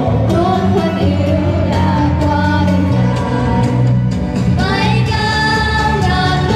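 Young girls singing a song into handheld microphones over a backing track, amplified through loudspeakers.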